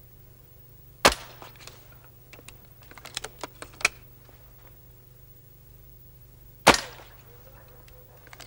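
BSA Gold Star spring-piston air rifle fired twice, about five and a half seconds apart, each shot a single sharp report. Between the shots, a quick run of small clicks.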